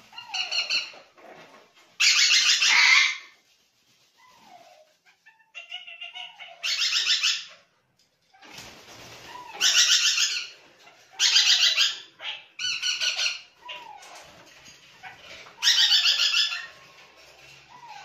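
Young parrots giving harsh, rapidly pulsed begging calls while being hand-fed formula from a syringe. There are about seven loud calls, each under a second, with softer short falling chirps between them.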